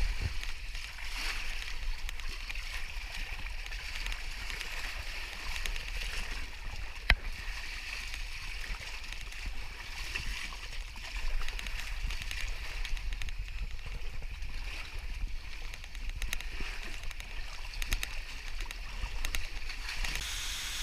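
Small lake waves lapping and sloshing against the rock at the foot of a sandstone cliff, a steady wash that rises and falls a little. A single sharp knock sounds about seven seconds in.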